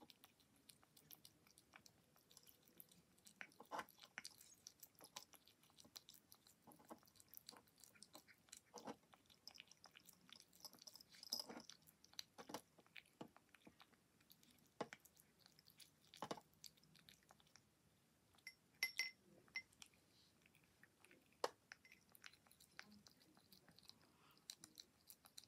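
Kitten eating wet pâté cat food from a ceramic bowl: faint, irregular chewing clicks, a few louder than the rest.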